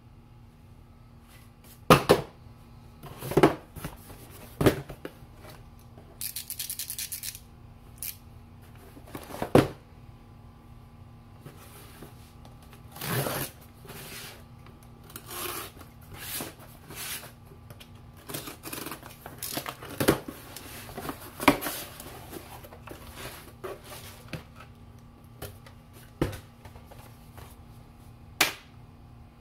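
A cardboard shipping box being handled and cut open with a utility knife: several sharp knocks as the box and the knife are set down on the cutting mat, a quick run of clicks about six seconds in, and cardboard scraping, rubbing and tearing.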